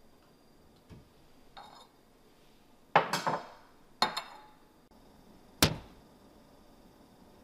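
Dishes clinking and clattering as they are handled in a kitchen cupboard: a faint knock and a light clink, then two loud clatters about a second apart, and a single sharp knock a little later.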